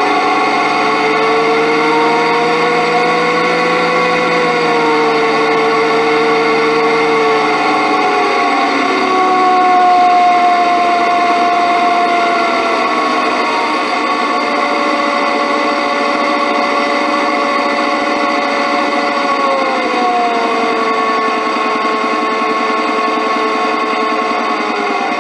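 Ball-bearing pulleys and guide rollers spinning under a motor-driven round belt on a steel plate, picked up by a piezo contact element: a steady ringing mechanical hum of several tones. The pitch glides down a few times.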